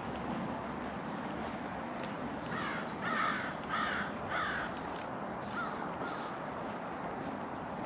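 Crow cawing: a quick run of about four harsh caws, then a couple of fainter calls, over steady outdoor background noise.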